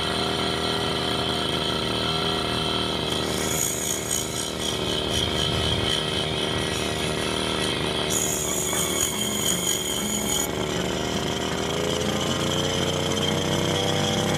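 Brush cutter's small petrol engine running steadily, spinning a grinding disc fitted to its head while a steel rod is held against it to grind it down. A harsher, high-pitched grinding noise comes and goes on top, from about three seconds in to about ten seconds, and again at the very end.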